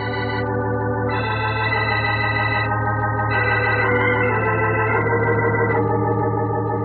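Organ music bridge: held chords that change every second or two, marking a scene change.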